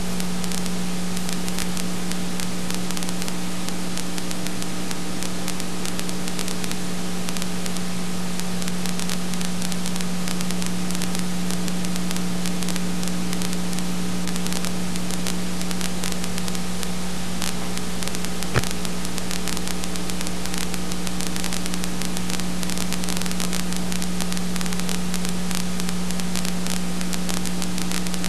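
Steady hiss and electrical hum from the soundtrack of an old home-movie transfer that carries no recorded sound, with a single sharp click about two-thirds of the way through.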